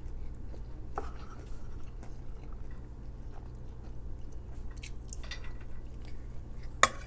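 A person chewing food with soft, wet mouth noises and small clicks, close to the microphone. There is one sharp click near the end, with a steady low hum underneath.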